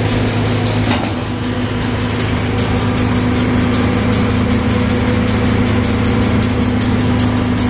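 Steady machinery hum of a running rotary drum screen fed by a double diaphragm pump, with a fast, even ticking over the top. A faint knock about a second in as the screen's cover is lifted.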